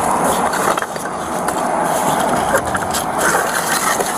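Steady hiss with scattered clicks, knocks and rustles as things are handled while a truck's cab is searched.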